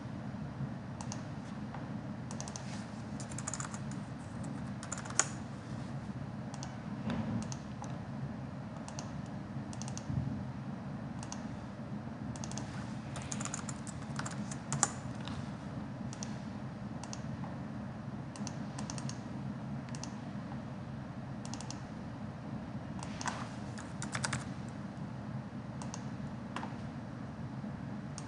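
Computer keyboard typing and mouse clicks, irregular and scattered, with a few sharper clicks standing out, over a steady low hum.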